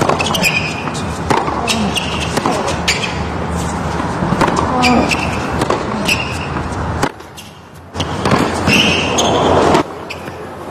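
Tennis rally: racquets striking the ball back and forth about once a second, each hit a sharp pop, over a steady murmur of the arena crowd.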